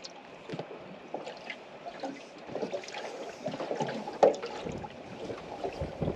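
Small waves lapping and slapping against the aluminium hull of a small boat. The knocks come irregularly, with one louder slap about four seconds in.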